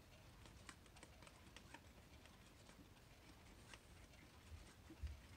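Faint, irregular small clicks from a quartz wall clock's movement as its hands are turned quickly round the dial to set the time, with a soft low bump from handling near the end.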